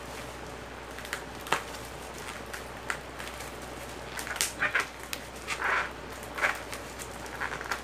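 Blunt scissors snipping and crunching through plastic packaging: a few sharp clicks, then a run of short, rough cuts in the second half.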